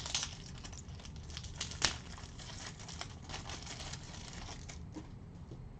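Cellophane pack wrapping and baseball cards being handled: a soft, continuous crinkling and rustling with many small clicks, and one sharper click about two seconds in.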